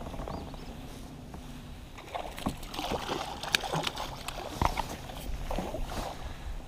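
A hooked bass thrashing and splashing at the surface beside a kayak as it is reeled in, a couple of seconds of irregular splashes mixed with a few sharp knocks.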